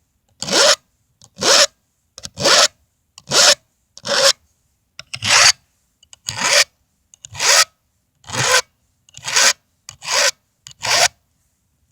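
Hand file rasping through the cutters of a Stihl MS 180 chainsaw chain: about twelve even strokes, roughly one a second, as the chain is sharpened. The strokes stop near the end.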